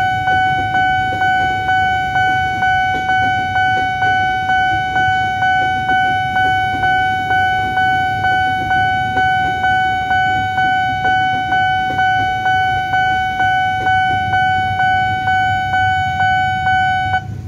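Railway level-crossing warning bell ringing in a steady, even rhythm of about two and a half strikes a second, cutting off suddenly near the end as the train clears. Underneath is the low rumble of an electric commuter train passing over the crossing.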